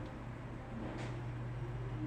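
A steady low hum, with one faint click about a second in.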